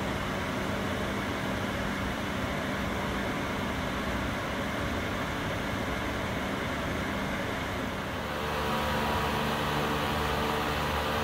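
Wall-mounted squirrel-cage blower fan running with a steady rush of air and a low hum. About eight seconds in a second garage fan joins, and the sound grows louder, with more hum tones.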